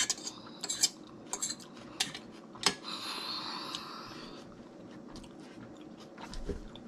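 A metal fork clinking and scraping in an escargot dish: a run of sharp clicks over the first few seconds, then a longer scrape about three seconds in, with chewing underneath.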